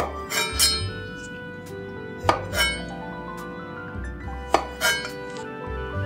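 Background music with sustained tones, over sharp clicking and crunching eating sounds that come in three pairs, each pair a fraction of a second apart.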